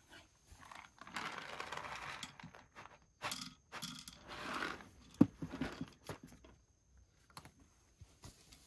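Dry cat food rattling into a wooden tray, then a cat crunching kibble, in short spells of crackly rustling with scattered clicks and one sharp click about five seconds in.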